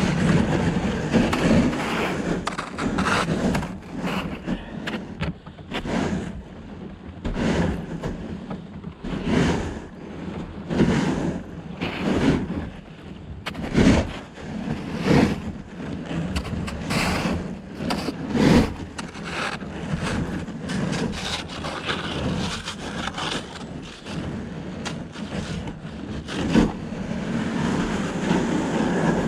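Plastic kayak hull scraping and grinding through thin river ice, with sharp cracks of the ice breaking about every second.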